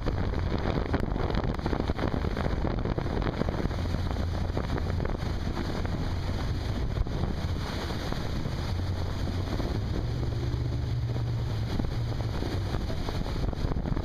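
Wind buffeting the microphone on a moving motorboat, over the steady low drone of the boat's motor and the rush of water.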